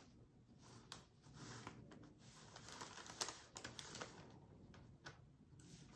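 Paintbrush mixing paint on a plastic palette: faint scraping and dabbing with a few light clicks of the brush against the palette.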